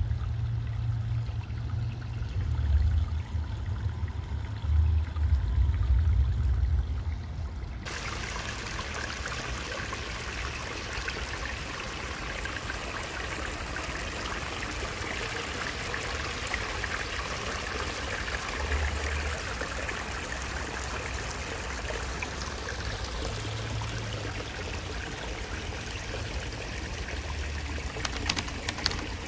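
Shallow creek water running and trickling. For the first eight seconds a low, gusting rumble covers it, then it changes abruptly to a steady, full hiss of running water.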